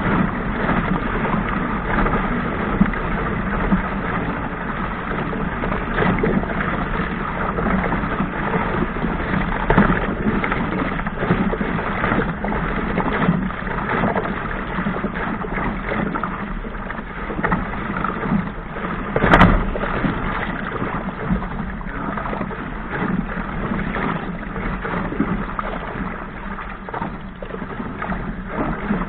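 Laser dinghy's hull slapping and splashing through choppy waves, with rushing water and spray all the way through. One sharper, louder bang about two-thirds of the way through.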